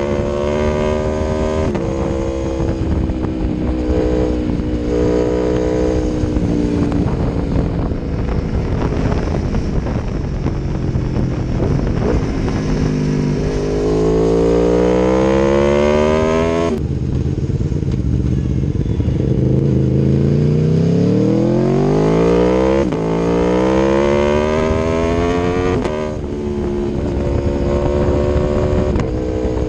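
Aprilia Tuono V4 1100 Factory's V4 engine through an Akrapovic exhaust, ridden hard: the engine note climbs in pitch under acceleration and drops sharply at each gear change, several times over.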